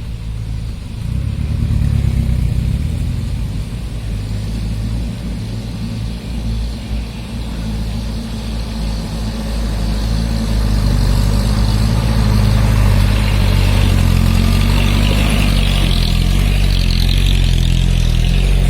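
Motor vehicle engine running while travelling along a road, with road and wind noise; it grows louder about ten seconds in.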